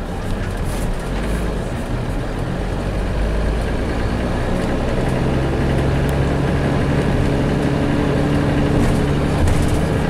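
Engine and road noise of a moving vehicle heard from inside its cabin: a steady low rumble, with the engine hum growing a little louder about a third of the way in.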